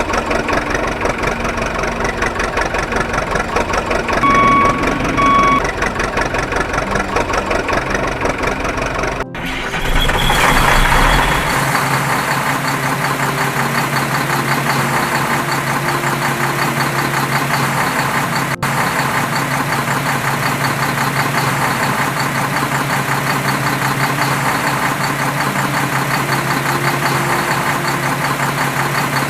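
Heavy-equipment diesel engines of the excavator and truck running, with a back-up alarm beeping twice about four to five seconds in. About nine seconds in the sound cuts to a steady, even engine drone.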